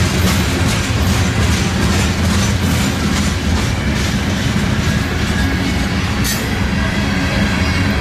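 Freight train cars, covered hoppers and tank cars, rolling past at close range: a loud, steady rumble of steel wheels on rail, with repeated clicks as the wheels cross rail joints.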